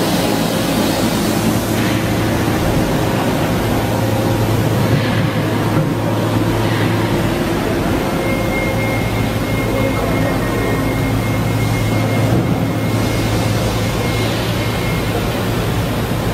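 Doosan HM-1250 horizontal machining center running under power: a steady low hum with a hiss over it, and a faint high whine from about eight seconds in until near the end.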